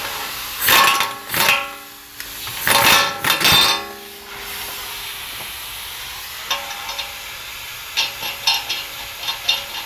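Metal tools and parts clanking, with a few loud strikes in the first four seconds that ring briefly, then a run of light, irregular clicks.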